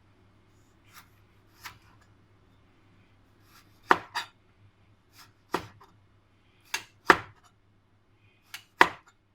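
Kitchen knife cutting tomato on a cutting board: about ten sharp, irregular knocks of the blade striking the board, some louder than others.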